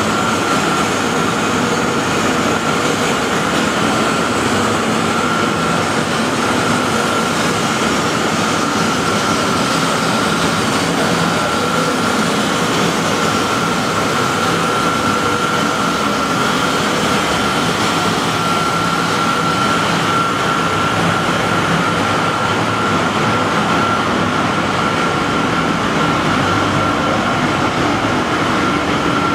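Running pyrolysis plant machinery: a steady, loud industrial drone and hiss with a constant high whine through it.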